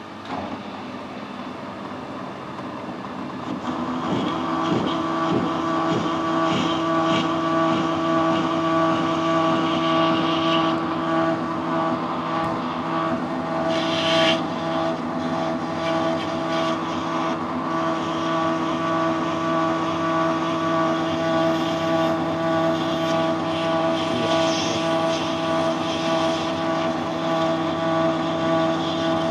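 Metal lathe starting up about three seconds in, then running steadily in a faster gear with a steady gearbox whine of several tones.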